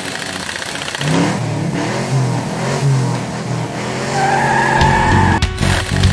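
A car engine revving and tires squealing, then heavy rock music with a strong bass and drums coming in about five seconds in.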